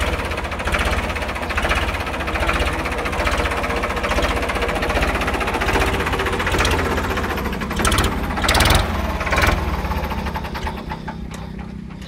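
Diesel tractor engine running with a fast, even knocking beat, briefly revved a few times about eight to nine and a half seconds in, then dropping quieter near the end.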